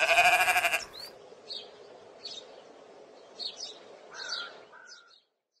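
A loud pitched sound with a fast quaver, lasting just under a second, then scattered short bird chirps every second or so over a faint steady hiss. The sound cuts off abruptly near the end.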